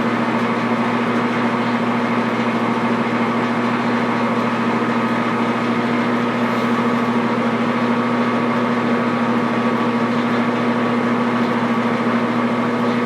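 Grizzly G4003G gearhead metal lathe running steadily in forward at its slowest spindle speed, about 70 RPM, at the start of spindle break-in. It makes an even motor and gearbox hum with a strong low tone and fainter higher tones.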